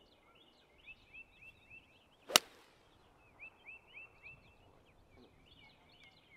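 One sharp crack of a golf driver striking the ball off the tee, a little over two seconds in. A bird sings runs of short, repeated, downward-slurred notes, about four a second, before and after it.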